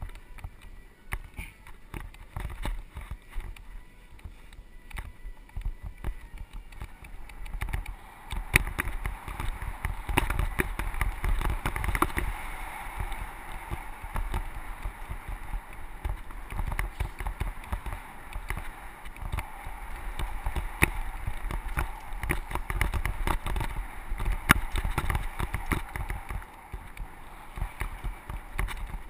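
Mountain bike ridden downhill on a dirt trail: tyres rolling over packed dirt and loose gravel, with frequent sharp rattles and knocks as the bike jolts over bumps. A low wind rumble sits on the camera microphone.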